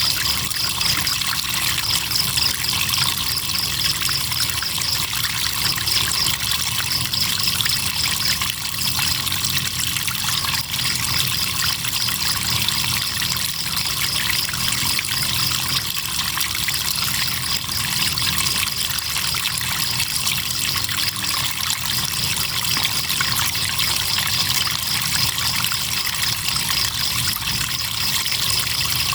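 Crickets chirping in a fast, even, high-pitched pulsing trill that pauses briefly now and then, over a steady trickle of flowing river water.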